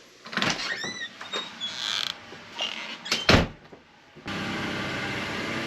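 Creaks, squeaks and knocks of someone getting into a pickup truck, with a loud thump of the door shutting a little past three seconds in. About four seconds in, the steady hum of the cab's running engine and fan starts suddenly.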